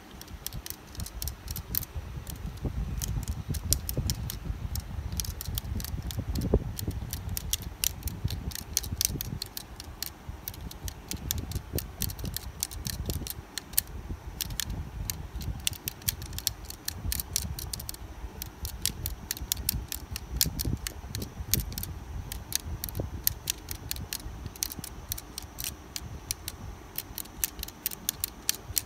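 Abacus beads clicking rapidly and irregularly as they are flicked at speed during a calculation, several sharp clicks a second, over a low rumble that is heavier in the first half.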